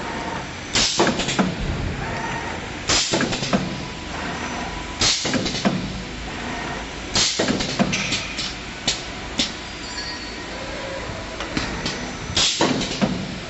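Automatic wire star-frame forming machine for spider strainers running through its cycles: a steady mechanical hum broken by sharp, brief bursts of noise about every two seconds, with a few lighter clicks in between.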